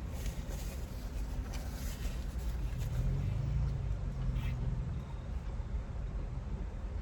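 Low steady vehicle rumble heard from inside a car, with a deeper hum that swells about three seconds in and fades after about five seconds, and a few faint clicks in the first two seconds.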